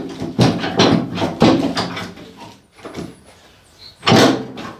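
Steel skid-steer loader bucket being worked loose from its quick-attach by hand: uneven metal scraping and clunking, with a loud clank about four seconds in.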